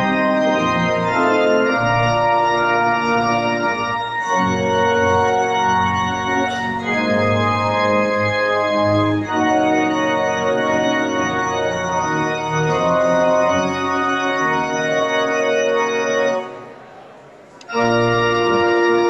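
Pipe organ, installed in 1919, played in sustained full chords over a low bass line, the chords changing every second or two. The playing breaks off for about a second near the end, then comes back in.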